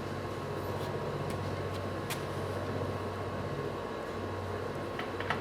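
Steady low mechanical hum, with a few faint clicks and a short run of light clicks near the end.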